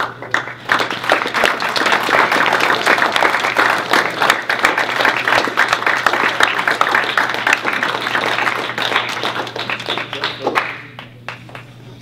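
Audience applauding: many hands clapping together, starting suddenly and dying away about ten and a half seconds in.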